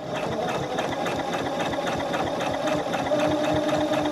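Janome Memory Craft 5900 QC computerised sewing machine stitching at speed: a quick, even patter of needle strokes, with a steady motor hum coming in about two-thirds of the way through. The machine is now forming stitches properly after being re-threaded.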